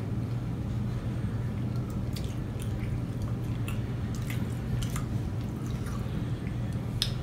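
Close-up chewing of a greasy burger, with small wet mouth clicks and smacks scattered through, over a steady low hum.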